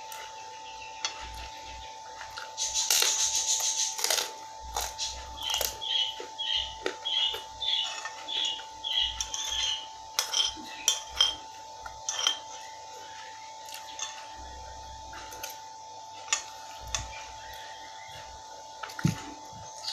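A spoon scraping and clinking against a glass bowl as the last of the food is scooped out, with eating sounds; a quick run of scrapes and clinks in the first half gives way to a few scattered clinks later. A steady thin hum sits underneath throughout.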